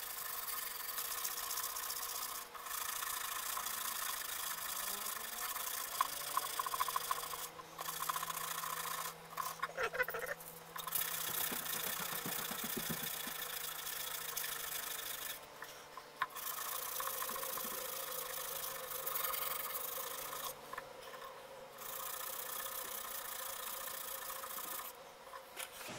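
Sandpaper rubbing on a wooden ukulele neck: hand sanding in long, steady passes, broken by short pauses several times, to level the neck so it sits straight.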